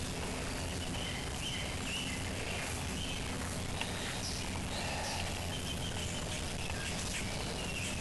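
Birds chirping with short, repeated calls over a steady low hum.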